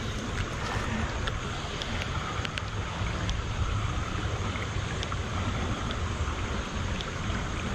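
Steady rush of shallow creek water running over rocks, with wind buffeting the microphone and a few faint scattered clicks.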